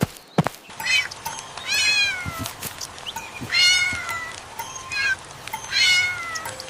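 A cat meowing several times, high-pitched, the longer meows sliding down in pitch at the end.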